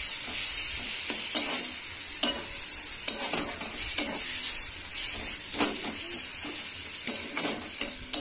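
A metal spatula scraping and clacking irregularly against a kadai (wok) as onions and poppy-seed paste are stirred, over a steady sizzle of frying oil.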